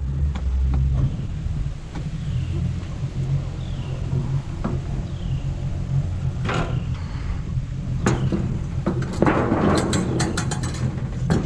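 Boat motor running at a steady low idle, with a few sharp knocks and a spell of clicking and rustling hiss near the end.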